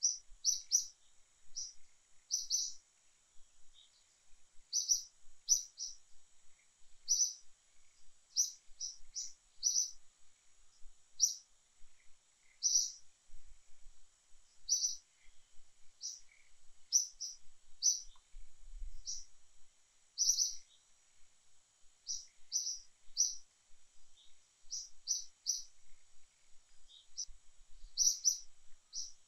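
A bird chirping over and over: short high chirps, often in quick pairs, about every one to two seconds, over a faint steady high-pitched hum.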